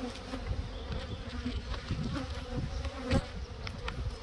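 Honeybees buzzing around the hive, with single bees flying close past the microphone, their hum briefly rising and falling in pitch about two and three seconds in.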